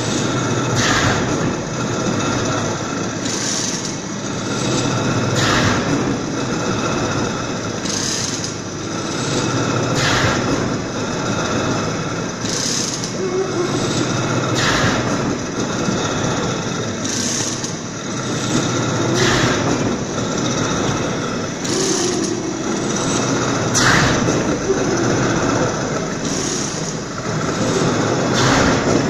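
Horizontal veneer slicer running over a steamed wood flitch, a steady machine hum with a brief sharp sound at each slicing stroke, repeating about every two and a half seconds.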